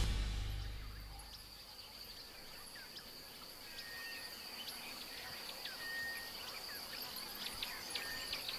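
Night-time African bush ambience: insects trilling steadily on one high pitch, with scattered short chirps and brief whistled calls over it. The tail of the soundtrack music dies away in the first second or so.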